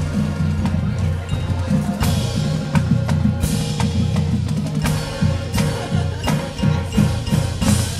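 High school marching band playing a field show: sustained low tones under a busy percussion part with many sharp strikes, including wood-block-like hits and bell tones.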